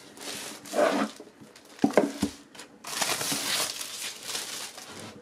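Clear plastic shrink wrap crinkling as it is peeled off a cardboard laptop box, with two short louder bursts of handling about one and two seconds in.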